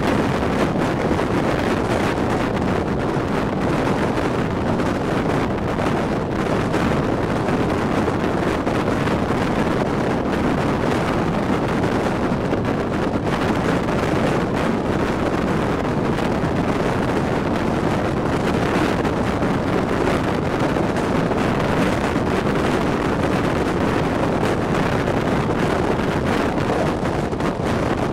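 Steady rush of wind on the microphone over the rolling noise of a passenger night train running at speed, heard from the carriage side at a window.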